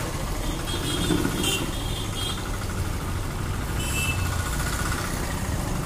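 Batter-coated chicken liver pieces deep-frying in a large kadai of hot oil, the oil sizzling and bubbling steadily over a low, continuous rumble.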